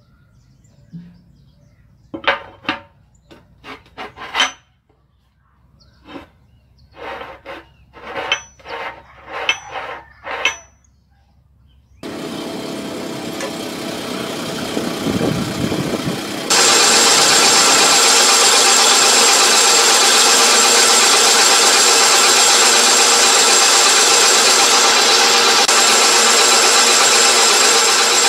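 A run of about ten sharp metallic clicks and taps with a short high ring, as machined steel parts are handled against a steel plate. Then, after a stretch of steady hiss, a metal lathe runs loudly and steadily, turning down the end of a 3/4-inch threaded steel rod, with a high steady whine over the cutting noise.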